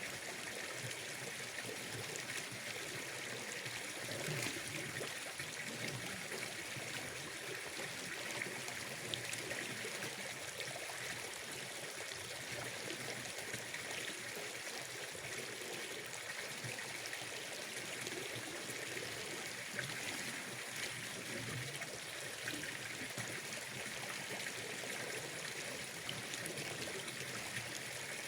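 Water flowing and trickling steadily, an even rushing hiss with no breaks.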